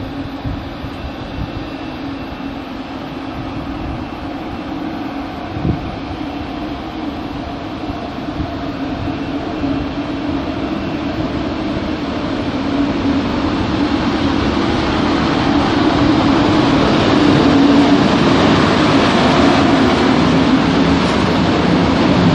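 An electric locomotive hauling double-deck regional coaches comes along the platform and passes close by, with a steady low hum and rolling rail noise. The sound grows steadily louder as the train nears. There is a single knock about six seconds in.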